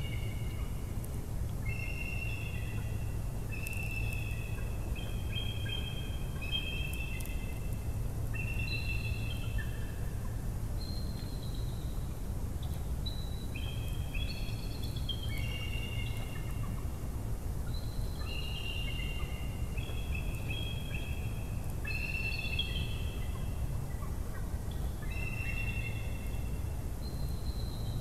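Several birds calling at dawn: many short, clear whistled notes at different pitches, overlapping and repeating throughout, over a steady low rumble.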